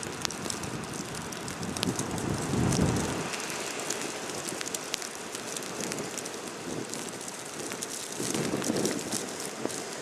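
Blizzard wind blowing across the microphone: a steady hiss with scattered light ticks, and two low buffeting gusts, about two seconds in and again near the end.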